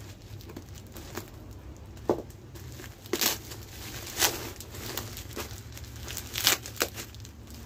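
Plastic bags of dried foodstuffs being handled and shifted, crinkling in a few sharp crackles, the loudest about two, three, four and six and a half seconds in, over a low steady hum.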